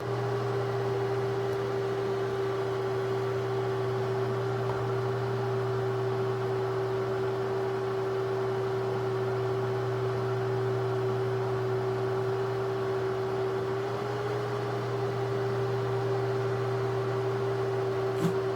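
Steady machine-like hum with a constant tone over a low drone and faint hiss, with one sharp click near the end.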